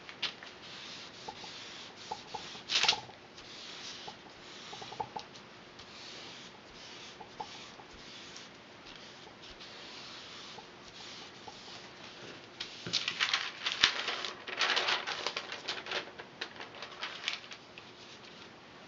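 Paper rustling and crinkling with light clicks and taps as tracing paper and flat barley-straw strips are handled and placed. A louder crackle comes about three seconds in, and a longer stretch of dense crinkling comes about two-thirds of the way through.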